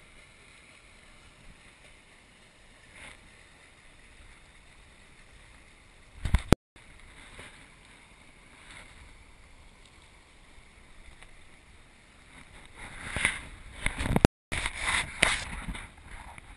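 Faint outdoor river ambience of flowing water, broken twice by abrupt drops to total silence where the footage is cut. About six seconds in there is a short loud rumble, and from about twelve to fifteen seconds louder rough bursts of noise on the camera's microphone as the camera is moved about.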